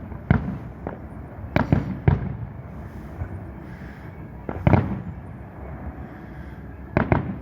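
Distant fireworks shells bursting: irregular sharp bangs a second or more apart, some in quick pairs, each trailing off in a low rumble.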